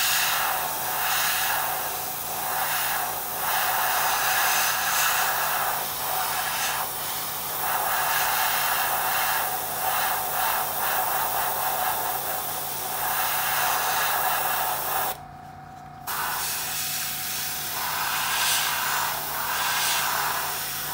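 Airbrush spraying thinned paint: a steady hiss of air and paint that swells and eases as the trigger is worked, stopping for about a second roughly three-quarters of the way through.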